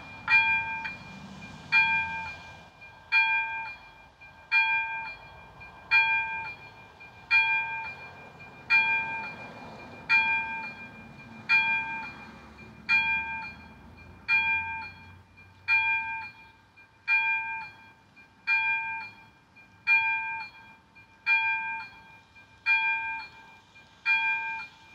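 Level-crossing warning bell (ZV02 on an AŽD 71 crossing) striking a single ringing ding about every second and a half in a steady slow rhythm, warning of an approaching train. It starts right at the beginning as the crossing activates.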